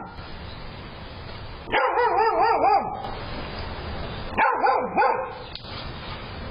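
A dog barking in two bouts, one of about a second starting near two seconds in and a shorter one about four and a half seconds in, the pitch wavering up and down within each bout.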